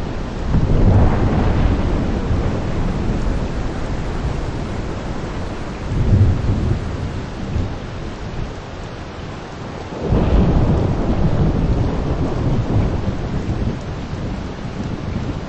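Steady downpour of rain with thunder rumbling in three low swells: about a second in, around six seconds, and just after ten seconds.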